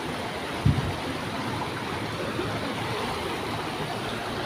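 River water rushing steadily over a low concrete weir, with a brief thump about a second in.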